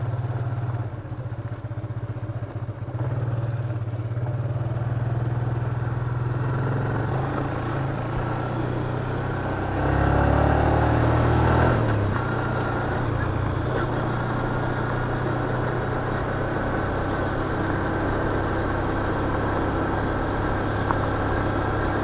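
Small motorcycle engine running steadily while being ridden. About ten seconds in it gets louder and its pitch rises for a couple of seconds as it accelerates, then it settles back to a steady cruise.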